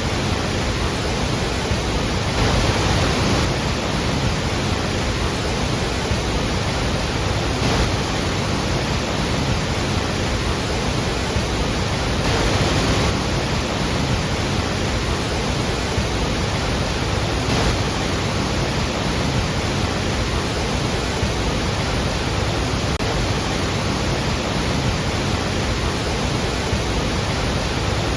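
Large waterfall thundering: a dense, steady rush of falling water with a few brief swells.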